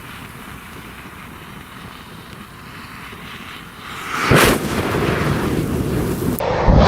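Burning matches hissing and crackling. About four seconds in a large mass of match heads flares up with a sudden loud whoosh, then burns on with a steady, louder crackle, and a second flare-up comes near the end.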